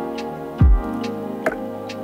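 Background music: a slow beat of deep kick-drum hits and light clicks under sustained chords.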